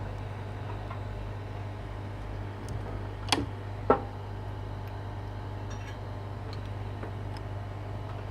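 Two short, sharp clicks about half a second apart from small parts or tools being handled on the phone, over a steady low hum.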